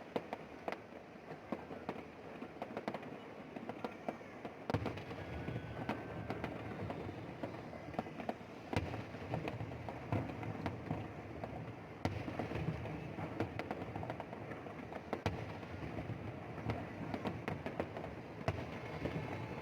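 Fireworks display: a steady run of bangs and crackles over a dense rumble, growing fuller and louder about five seconds in.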